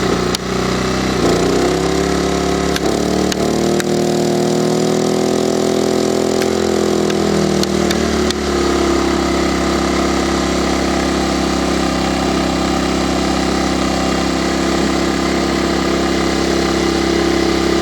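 Small 850 W petrol inverter generator running. Its engine speed rises about a second in, holds, then eases back down by about eight seconds in and settles to a steady run. A few faint clicks sound during the first half.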